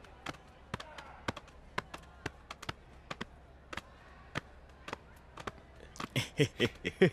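Irregular sharp taps, like hard-soled footsteps on a hard floor, two or three a second. About six seconds in, short louder bursts of a man's voice begin, like chuckling.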